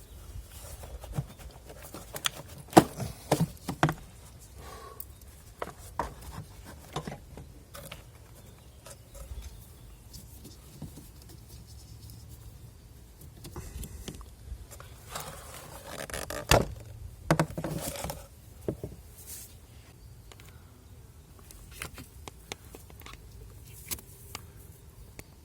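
Scattered clicks, taps and knocks of hand tools and plastic parts being handled while the air filter housing is taken off the engine, busiest about three seconds in and again around sixteen to eighteen seconds in.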